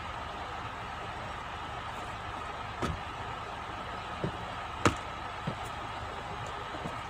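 Four sharp knocks as a rolled tarpaulin is tied down with rope on a truck, over a steady mechanical hum; the loudest knock comes about five seconds in.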